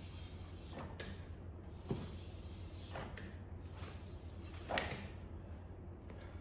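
Four separate short knocks and clinks of hand tools and parts against the motorcycle during a wheel swap, the loudest about three-quarters of the way through, over a steady low hum.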